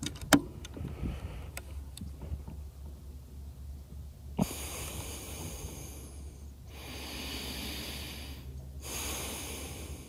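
A sharp metallic click from the Air Venturi Avenger .25 PCP air rifle being cocked and loaded for the next shot, followed by a few lighter clicks. From about four seconds in come three long, breathy hisses, each about two seconds long, with short pauses between them.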